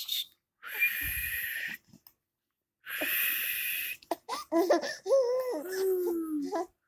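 Two long breathy hisses, then a young infant cooing: a string of high, gliding coos and squeals that rise and fall in pitch through the second half.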